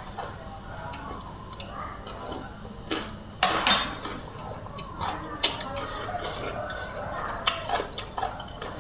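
A metal fork clinking and scraping against a plate of rice noodles, with a louder clatter a little over three seconds in as the fork is put down, and a few more light clinks later.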